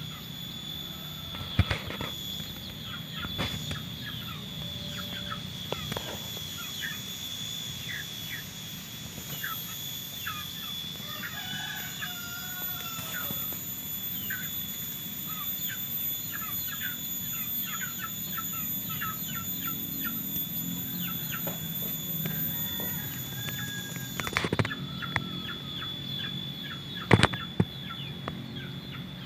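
Birds chirping in short, rapid calls, with clucking fowl among them, over a steady high-pitched whine. A few sharp knocks near the start and near the end.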